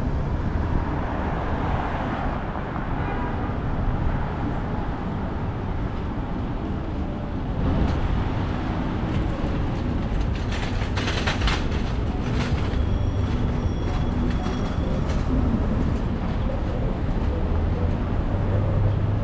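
Downtown street ambience: a steady low rumble of road traffic, with a short burst of clattering noises about ten seconds in.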